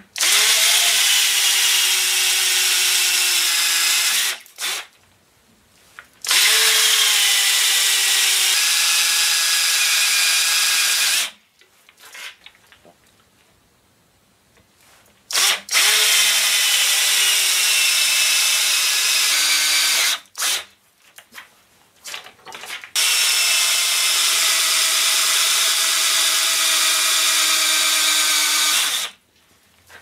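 Black & Decker Matrix 20 V cordless drill driving a 1¾-inch hole saw, cutting four holes in turn. Each run starts with a whine whose pitch drops as the saw bites in, then holds steady for about four to six seconds before stopping. There are short pauses between runs.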